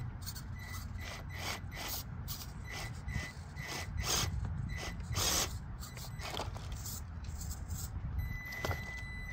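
Traxxas TRX-4M mini RC crawler scraping and knocking against rock as it scrabbles among boulders: a string of irregular scrapes, loudest about four and five seconds in.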